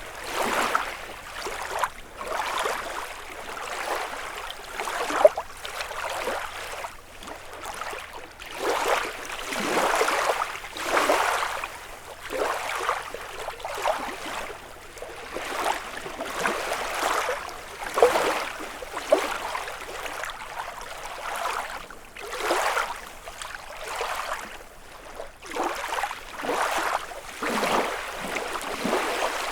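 Small lake waves lapping and splashing on the shore, one wash after another every second or two, with an uneven rhythm.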